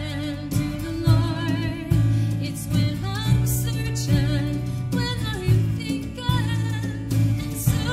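Live band playing a slow contemporary worship song: acoustic guitar, electric bass, and a drum kit played softly with brushes, with a wavering melody line above.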